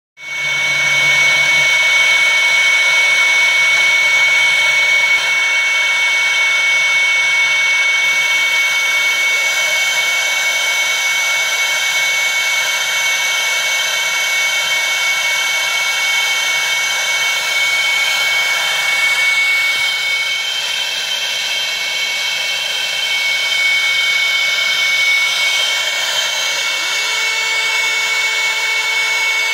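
Laser engraving machine running while it marks a steel gun receiver: a steady high whine over an even rushing hiss. Near the end a lower hum rises in, holds for a couple of seconds and drops away.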